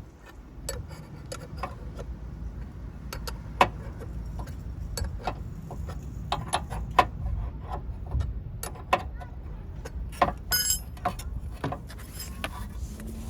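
Hand tools clinking and clicking on metal in a scattered, irregular run of short sharp knocks, with a short rattling cluster near the end, over a steady low rumble.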